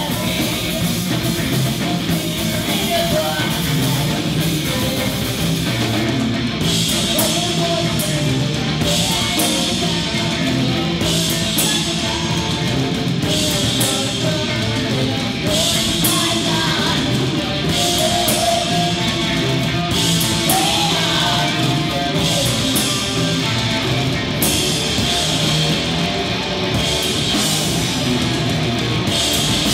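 Live heavy rock band playing loud: distorted guitar, bass guitar and drum kit, with a woman singing. From about six seconds in, cymbal crashes fall about every two seconds.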